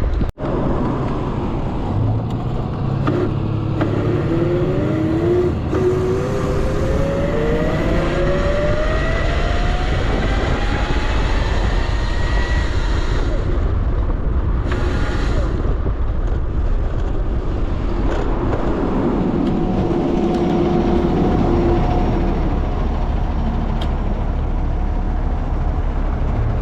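Riding on a Razor RSF650 electric motorcycle: a steady low rumble of wind and road noise, with the electric motor's whine rising in pitch for several seconds as the bike speeds up, and holding steady again later.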